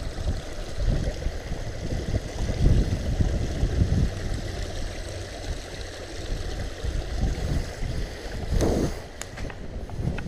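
Wind and clothing rubbing on a body-worn action camera's microphone make an uneven low rumble. Near the end there are a scuff and a few footsteps on grass.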